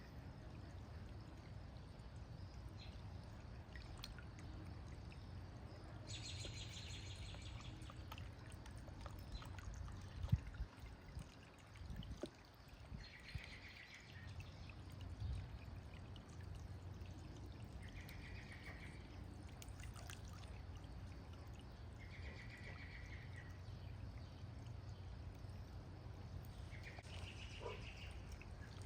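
Water from a small solar-powered fountain pump splashing and trickling into the fountain basin, faint and steady. A few soft knocks come about ten to twelve seconds in, and short high calls, likely birds, come several times.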